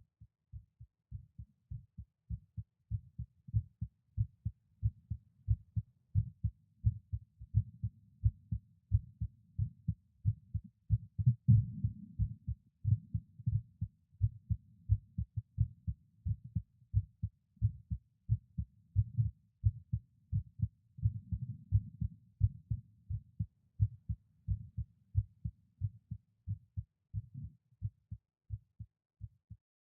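A resting adult male heart heard through a stethoscope: a steady run of paired low lub-dub beats, faint for the first second or two and then louder.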